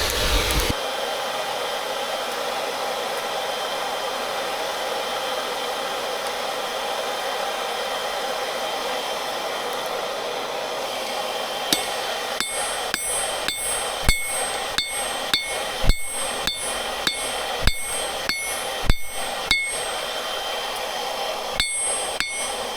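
A hammer striking metal on an anvil, each blow giving a bright metallic ring, about two blows a second from about halfway through with a short pause near the end. Under it, the steady whoosh of air blown into the forge.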